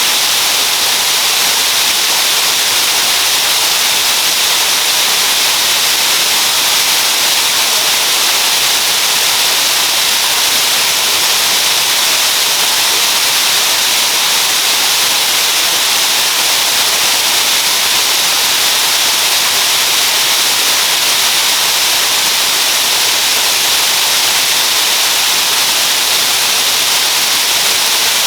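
Waterfall rushing: a loud, steady hiss of falling water with no change throughout.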